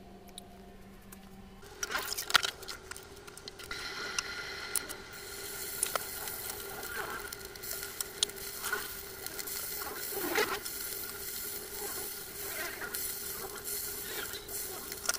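Bacon sizzling in a non-stick frying pan, starting about four seconds in after a few sharp knocks of pan and utensils. Light clicks and scrapes of wooden spatula and metal tongs sound against the pan over the sizzle.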